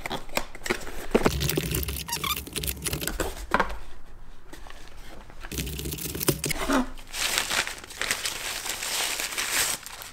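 Cardboard box and packaging handled by hand, with scattered knocks and scrapes of the flaps, then a plastic wrapper crinkling steadily for the last three seconds or so as the camera is pulled out of it.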